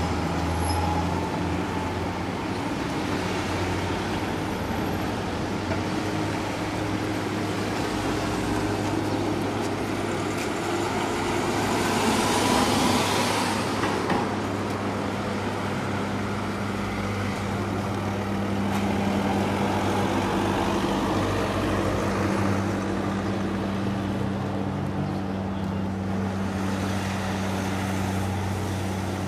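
Street traffic: a steady low hum, with a car passing by about twelve seconds in, rising and then fading away.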